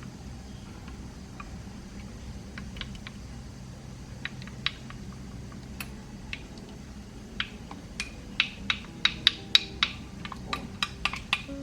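Sharp clicks and taps, sparse at first and then coming quickly, about three or four a second, from about eight seconds in, over a low steady hum.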